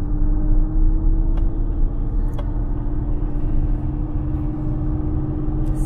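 BMW E9 coupe driving, heard from inside the cabin: the straight-six engine runs steadily under a low road rumble, its note rising slightly.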